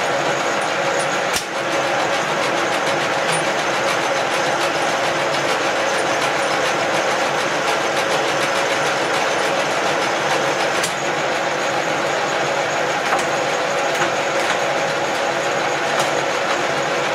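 Cincinnati No. 2 milling machine running, its gear train and spindle drive giving a steady mechanical clatter, with a few sharp clicks during the run. Its three-phase motor is driven through a VFD from a single-phase 220 V supply.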